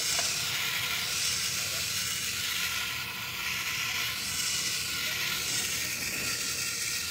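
Water spraying from a garden hose onto potted plants, a steady hiss that swells and eases in a slow repeating pattern as the spray is swept back and forth.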